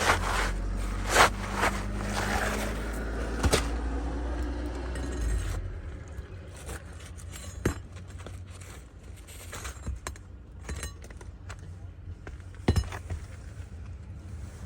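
Hand work on an asphalt shingle roof while a damaged shingle is removed and replaced: scattered sharp knocks and metallic clinks of tools and nails, with a low steady rumble under the first five seconds that stops abruptly.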